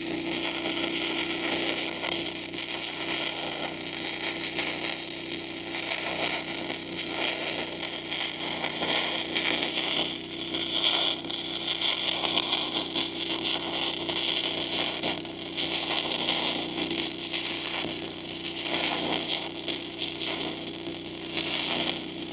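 Lincoln Electric Weld Pak wire-feed welder laying a long continuous bead on steel: the arc crackles and sputters steadily over a steady hum, running pretty smooth without breaking off.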